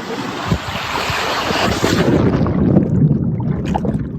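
Rushing water and wind buffeting the microphone as someone goes down a waterfall chute. About halfway through, the sound turns dull and muffled, with the high end gone and a low rumble left.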